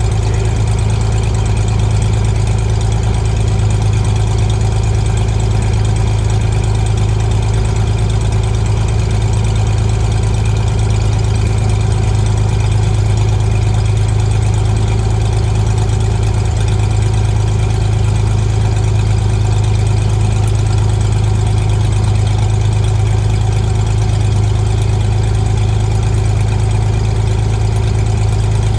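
Single piston engine and propeller of a retractable-gear Cessna droning steadily in the cockpit, with an even, unchanging pitch and level.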